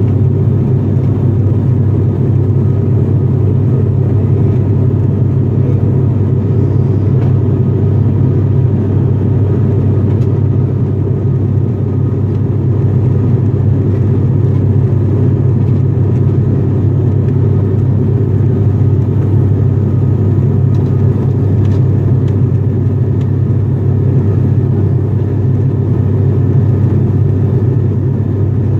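Cabin noise of an ATR 42-500 turboprop airliner in flight: a loud, steady, low drone from its engines and propellers, heard from inside the cabin.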